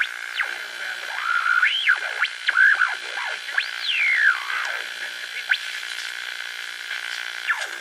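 Eerie electronic sound effect: thin whistling tones that swoop up and down in pitch, one after another, over a steady hiss.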